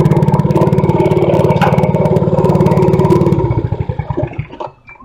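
Mini bike's Predator 212cc single-cylinder engine idling with a rapid, even putter, then shut off about three and a half seconds in: the firing slows over about a second and stops.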